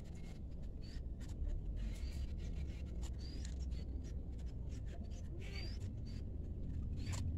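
Faint scratching and rubbing of fingers dribbling white rangoli powder onto a bare earth floor, over a steady low rumble. A short high chirp repeats every second or two.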